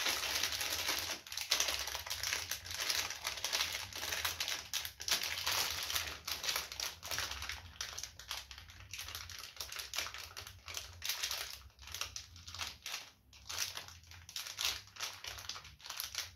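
Small plastic bags of mounting screws crinkling and rustling as they are handled, in irregular crackly bursts that are louder in the first few seconds.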